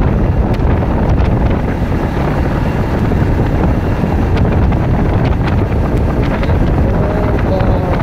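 Steady, loud wind rush buffeting the microphone on a moving motorcycle, over low road and engine rumble. A faint wavering tone comes in near the end.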